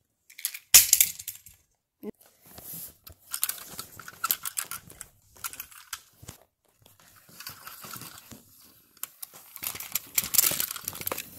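Plastic toy trains being handled and moved about: irregular clattering and rattling, with one sharp knock a little under a second in.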